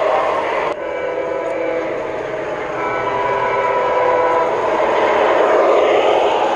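Lionel O-gauge Amtrak Acela model train running, with a steady rolling noise. About a second in its onboard sound system sounds a horn, held for several seconds. Near the end the rolling noise swells as the train passes close.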